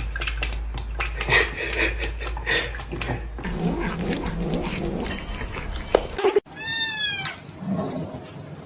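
Domestic cat yowling. After a sudden break about two-thirds of the way through comes one clear, drawn-out meow.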